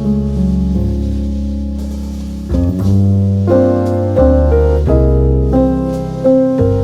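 Background music: soft piano chords over a deep bass line, changing every second or so.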